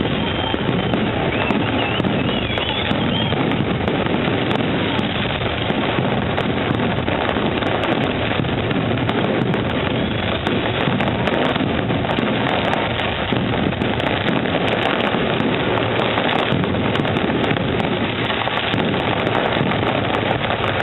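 Aerial fireworks display: a dense, unbroken barrage of bangs and crackling from shells bursting overhead, at a steady loudness throughout.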